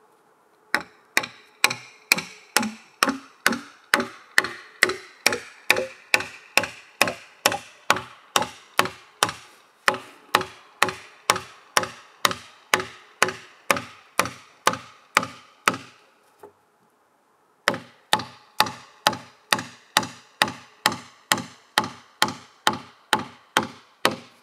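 Steady hammering, a little over two sharp blows a second, with a short pause about two thirds of the way through before the blows start again.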